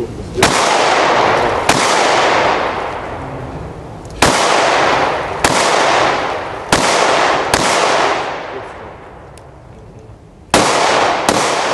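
Eight gunshots fired at an uneven pace, mostly in pairs about a second apart, each followed by a long echo that fades over a second or more.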